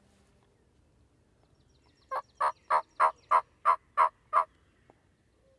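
Turkey yelping: a run of eight short, evenly spaced yelps, about three a second, starting about two seconds in.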